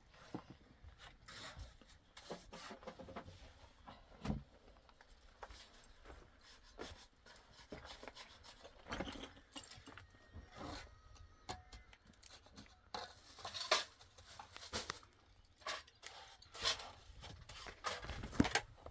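Irregular scraping, rubbing and small knocks of objects being handled, with a few sharper clicks in the second half.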